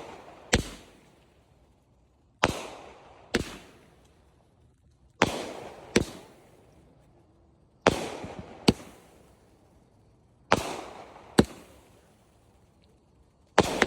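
Fireworks going off as repeated pairs of sharp bangs, the two bangs of a pair less than a second apart and a new pair about every two and a half seconds, each bang trailing off in an echo.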